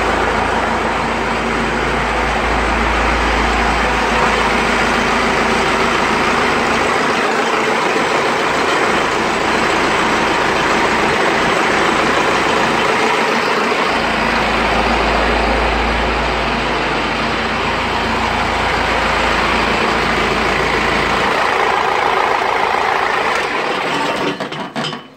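Cummins 4BT four-cylinder turbo diesel with a Bosch P-pump, running steadily on a test stand. It stops about a second before the end.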